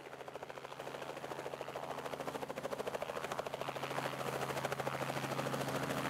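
Small two-bladed helicopter in flight: a rapid, even pulsing beat of the main rotor over a steady engine hum, growing slowly louder.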